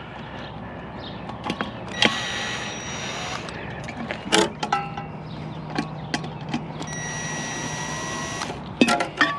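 Cordless drill (screw gun) running in two bursts of about a second and a half each, backing screws out of a scrapped fan, with sharp clicks and knocks of metal parts being handled between the bursts.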